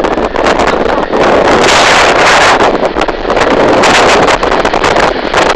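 Wind buffeting the microphone in loud, gusting rushes of noise.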